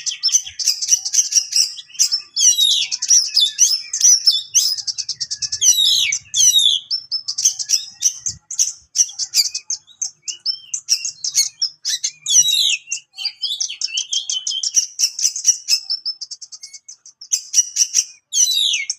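Oriental magpie-robin (kacer) singing sharp, loud bursts of song with hardly a pause: quick sweeping whistles mixed with fast buzzy rattles and sharp clicking notes.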